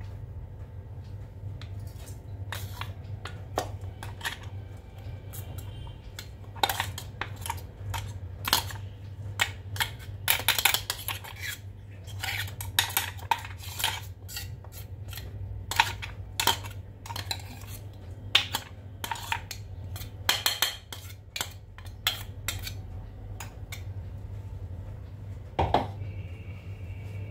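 Steel spoons clinking and scraping against a stainless steel tumbler and a metal kadai as roasted semolina is scraped out of the tumbler and stirred, in irregular clicks and scrapes. A steady low hum runs underneath.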